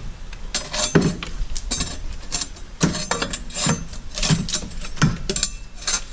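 Metal tools and parts clanking and clinking irregularly, about a dozen sharp knocks with a metallic ring, as a golf cart clutch is worked on.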